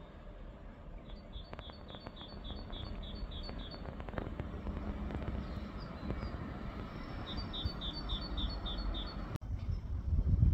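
A small songbird singing a fast run of repeated two-part chirps, about four a second, then a second run a few seconds later. Under it is a steady low outdoor rumble.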